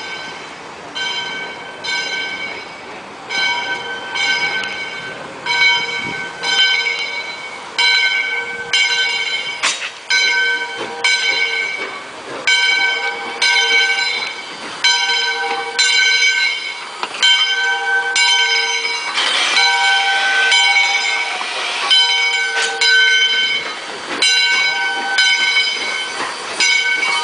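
Valley Railroad No. 40's bell, on a 2-8-2 Mikado steam locomotive, ringing steadily at about one and a half strikes a second, with steam hissing underneath that swells briefly about two-thirds of the way through.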